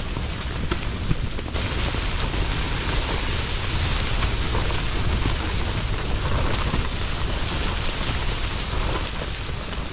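Strong snowstorm wind blowing against a tent: a steady rushing with a low rumble and irregular fabric flapping and ticking.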